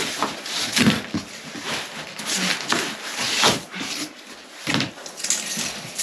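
Sheets of flattened cardboard being handled, flexed and swung about, rustling and scraping in irregular bursts with a few light knocks.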